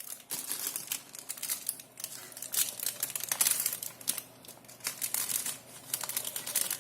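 Packaging crinkling and rustling as a shipping parcel is handled and torn open, in irregular crackly bursts, loudest in the middle.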